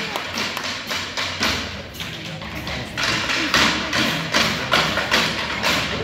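Marching drumline (snares, tenors and bass drums) tapping out a steady beat of drum and stick hits, about two a second, louder from about three seconds in.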